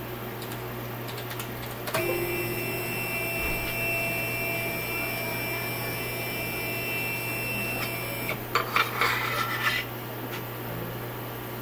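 CNC 3020 router's stepper motor whining steadily as it drives the Y-axis ball screw through a move, starting suddenly about two seconds in and cutting off after about six seconds. A short spell of irregular clicking and rattling follows, over a steady low hum.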